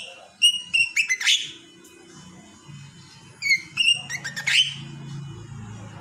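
Lovebird giving sharp, shrill chirps in two quick bursts, the first right at the start and the second about three and a half seconds in. Background music with low tones comes in from about two seconds and grows louder near the end.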